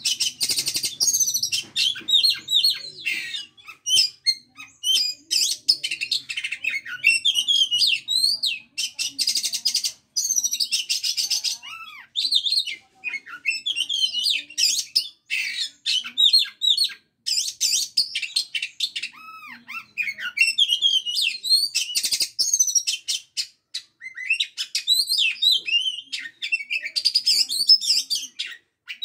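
Oriental magpie-robin singing almost without a break: varied whistled phrases and slurs alternating with long, very rapid buzzy trills. This is the rapid, non-stop 'ngebren' song that bird keepers prize.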